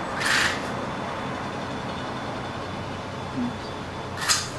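Steady hum of distant road traffic, with two short hissing rustles, one just after the start and one near the end.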